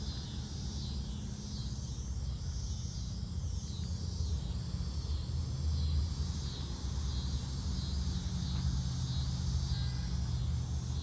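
Outdoor ambience: a steady low rumble, like a distant engine or machine running, with insects chirping in repeated high pulses over it.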